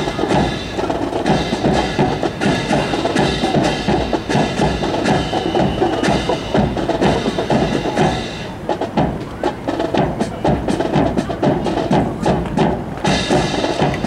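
Many sharp wooden clacks of drill rifles being slapped, spun and struck in unison during a rifle drill routine, over background music.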